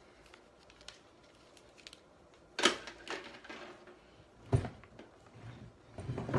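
Cardboard boxes being handled and set down: a thump with some rustling about two and a half seconds in, another about two seconds later, and a last one near the end.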